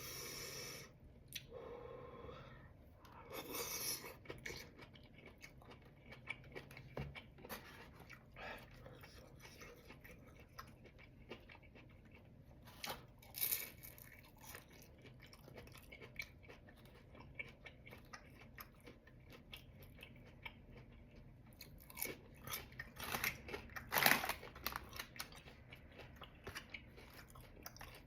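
A person eating close to the microphone: chewing, biting and crunching food, with many short wet smacks and clicks and a few louder bites.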